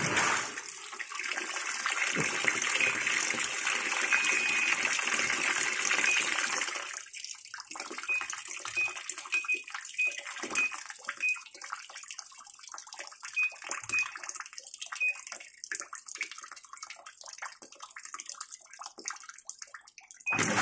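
Water rushing steadily from a Sharp ES-U756E top-loading washing machine set to drain, easing after about seven seconds into irregular trickling and splashing. A string of short high beeps is heard through the second half.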